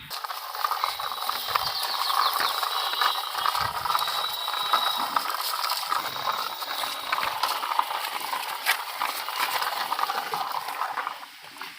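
Small plastic toy vehicle pushed along a hard surface, its wheels and body clattering in a dense run of rapid small clicks.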